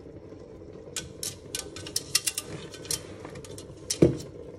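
Crumble topping being crumbled by hand onto a baked apple tart: a run of small crisp clicks and crackles, then one louder knock near the end.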